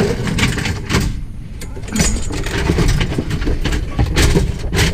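Scrap pieces knocking, clattering and scraping as they are wrestled into a vehicle, with repeated sharp knocks over a steady low rumble.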